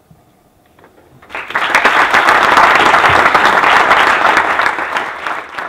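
Audience applauding: a quiet start, then many hands clapping about a second and a half in, beginning to fade near the end.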